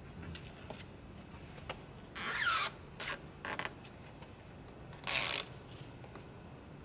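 Red backing liner being peeled off a car vent visor's adhesive tape in four short pulls, each a brief rasping rip; the loudest come about two seconds in and again about five seconds in.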